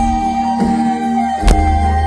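Live band music with a held note over bass and drums. The bass and drums drop out for about a second, then come back in with a drum hit about one and a half seconds in.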